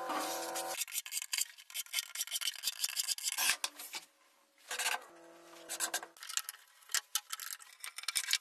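Cordless drill driving screws into a pine board, its motor whining in two short runs, one at the start and one about five seconds in. Between the runs there is scratchy rubbing and scraping on wood.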